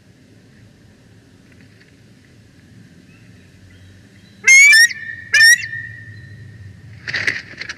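Bald eagle chortling: two short, loud bursts of rapid, high piping notes about a second apart, followed near the end by a brief rough, breathy burst.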